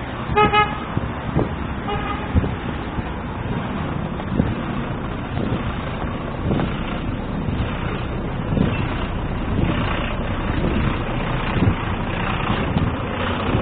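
Street traffic running steadily, with a car horn tooting briefly about half a second in and again, more faintly, about two seconds in.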